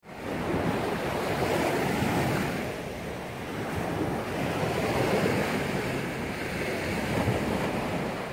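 Ocean surf washing onto a beach: a steady rushing noise that swells and eases every few seconds, with wind buffeting the microphone.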